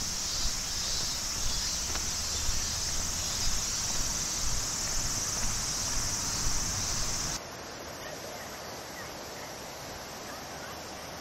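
Footsteps walking along a paved forest path under a steady high drone of cicadas. About seven seconds in, this cuts abruptly to the softer, even rush of a shallow mountain river running over stones, with the insect drone gone.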